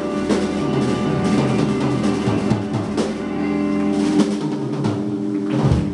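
Live blues band: electric guitars hold a ringing chord while the drum kit plays rolls and cymbal hits over it.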